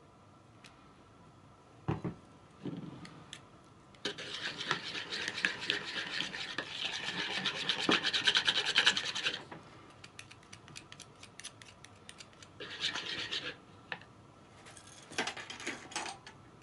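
Small wire whisk beating a thin sauce in a plastic bowl: a fast run of scraping and clicking as the wires rub the bowl, lasting about five seconds, then two shorter bursts of whisking. A single knock comes about two seconds in.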